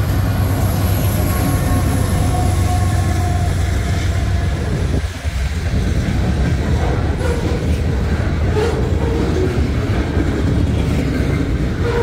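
Freight train passing close by: the diesel locomotives rumble past first, then boxcars and flatcars roll by with wheels clicking over rail joints and a light wheel squeal.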